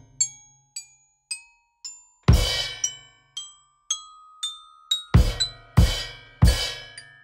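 Background music: light mallet-percussion notes like a glockenspiel, about two a second, with four loud drum-and-cymbal hits in the second half.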